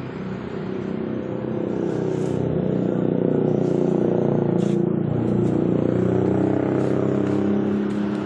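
A vehicle engine running steadily, with an even hum and some road or wind noise over it.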